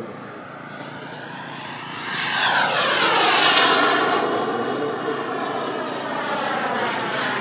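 Small turbine engine of a radio-controlled model jet whining as the jet flies past, getting louder and then dropping in pitch as it goes by about three seconds in, before running on steadily a little fainter.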